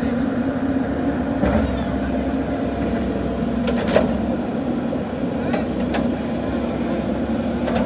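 Diesel engine of a JCB 3DX backhoe loader running steadily under work, with a few sharp knocks in two close pairs around the middle.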